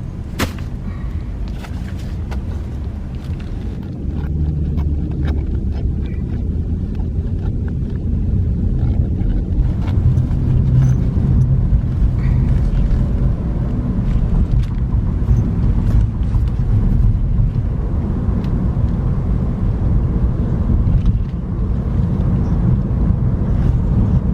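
Car cabin road noise while driving on a freeway: a steady low rumble of tyres and engine that gets louder about four seconds in and again around ten seconds in, with a few faint clicks.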